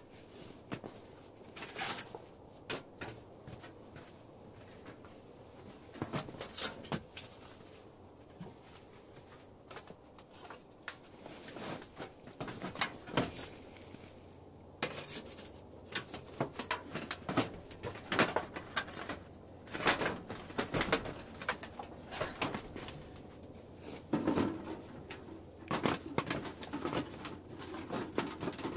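Crinkling and rustling of foil heat-reflector sheets being laid out by hand on a tent floor, with light knocks and scrapes as a thin titanium box stove is handled and set down on them near the end.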